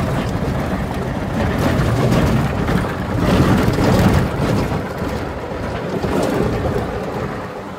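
Open-sided Jeep driving along a rough gravel dirt road: engine and tyre noise mixed with wind on the open cabin, a deep, uneven rush that swells and eases.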